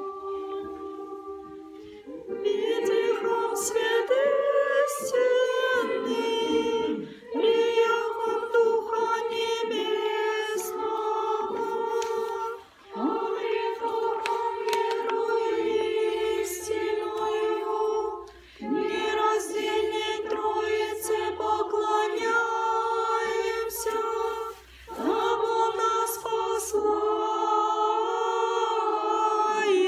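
Women singing Orthodox church chant unaccompanied, in long held phrases with a short breath every five or six seconds.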